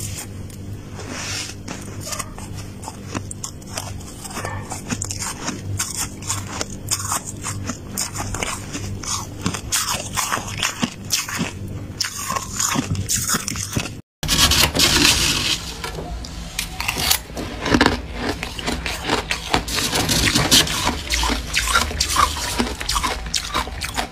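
Freezer frost being bitten and chewed up close: a dense run of crunches. It breaks off briefly about halfway, then goes on louder and grittier.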